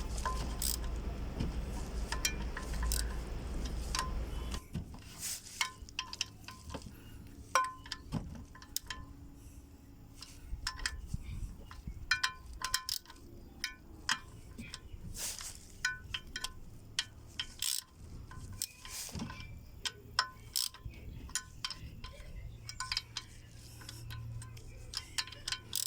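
Irregular metallic clicks and clinks of hand tools and bolts on a transmission, with short ringing after each contact. A low steady hum underlies the first few seconds and cuts off suddenly about four and a half seconds in.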